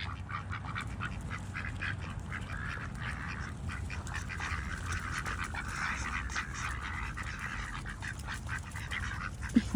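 A group of ducks quacking and chattering, many short calls overlapping throughout, over a steady low hum.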